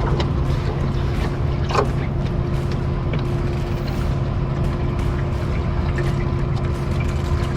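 Steady hum of a small motor, with a few sharp clicks over it.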